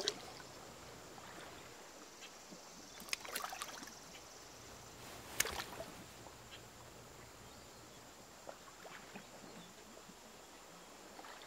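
Faint river water lapping around people standing waist-deep, with a few small splashes and sloshes over a low steady hiss.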